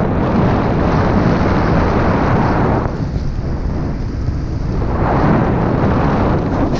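Loud rush of wind over an action camera's microphone while riding a snowboard downhill through fresh powder, swelling twice as the rider picks up speed.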